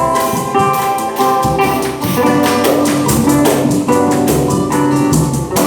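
A band playing an instrumental passage: held, pitched instrument notes over a steady drum beat, with no singing.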